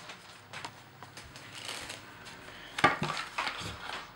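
A deck of playing cards handled and slid into its paperboard tuck box: faint taps and rustles, then a run of sharper clicks and scrapes about three seconds in.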